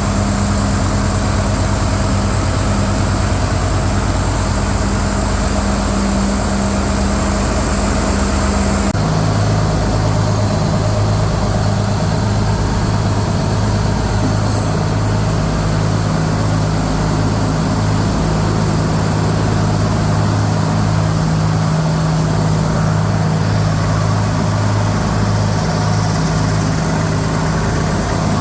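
Mycom compressor running steadily on a test run, a loud continuous machinery hum. About nine seconds in, the hum abruptly shifts to a slightly lower pitch and carries on steadily.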